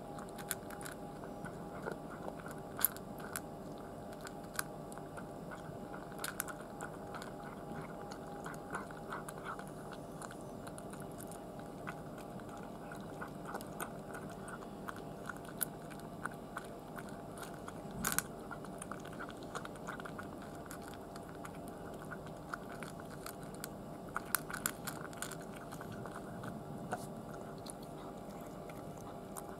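A cat chewing its food out of a stainless steel bowl: irregular crunching chews and small sharp clicks, with one louder knock a little past the middle, over a steady faint hum.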